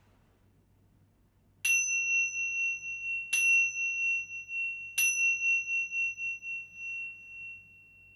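A pair of Tibetan tingsha cymbals struck together three times, under two seconds apart. Each strike gives a high, clear ring that runs on into the next, and the last rings out and fades slowly.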